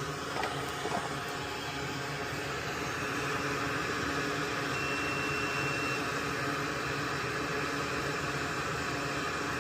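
Steady fan-like hiss with a couple of light clicks early on, then a single steady high-pitched beep lasting about a second midway: a multimeter continuity beep checking the freshly soldered relay joint.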